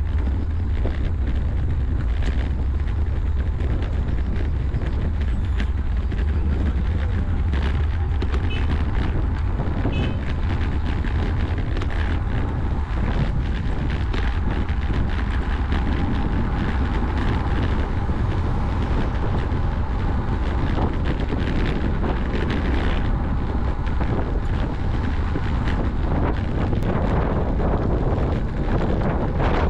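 Wind buffeting the action camera's microphone on a moving road bike: a steady, heavy low rumble with a rushing hiss over it.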